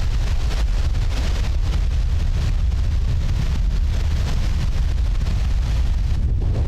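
Strong wind buffeting the microphone with a deep, steady rumble, over the rush of lake waves breaking on the beach that swells and ebbs.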